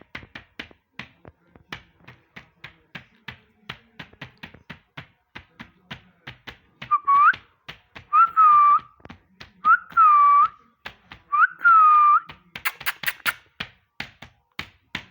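Ringneck parrot whistling four times in the middle stretch, each a quick upward swoop that settles into a held, slightly falling tone. Throughout there is a run of sharp clicks, about three a second.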